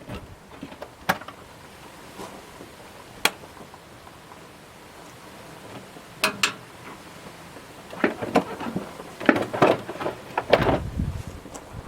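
Scattered sharp clicks and knocks, then a busier clatter of plastic knocks and rattles from about eight seconds in, as a Honda Prelude's stock air box and its hoses are worked loose and pulled out by hand.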